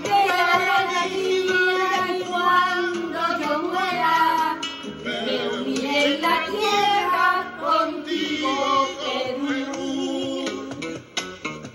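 Several women singing a Peruvian patriotic song together, with instrumental accompaniment.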